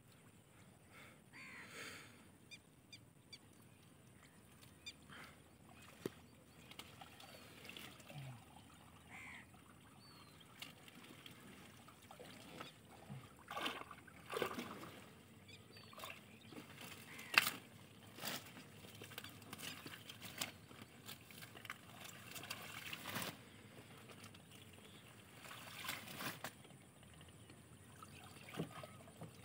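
Faint water sloshing and trickling as a bamboo-handled push net and wading legs are worked through shallow water and water hyacinth, with scattered short rustles and knocks.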